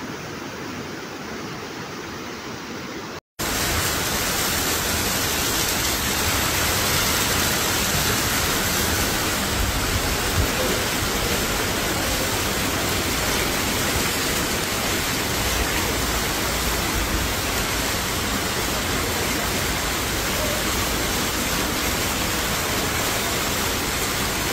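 Muddy floodwater rushing for about three seconds, then a sudden break and a loud, steady torrential downpour of rain.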